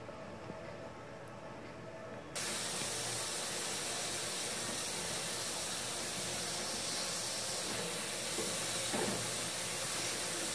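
Pressure cooker on a gas stove hissing steadily as steam escapes under pressure from its vent weight. The hiss cuts in suddenly a little over two seconds in.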